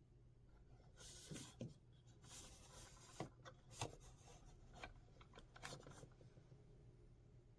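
Faint rubbing and scratching with a few light clicks, like something being handled, over a low steady hum. The handling starts about a second in and stops about six seconds in.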